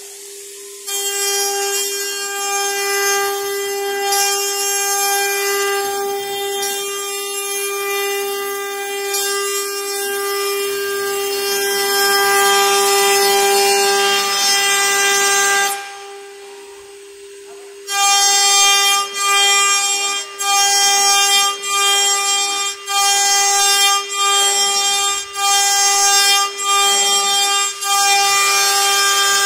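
CNC router spindle whining at a steady pitch while its cutter mills a metal workpiece, throwing sparks. The cutting noise comes in about a second in, drops away for a couple of seconds past the middle with only the spindle whine left, then returns as a run of short cuts broken by brief dips about every second and a quarter.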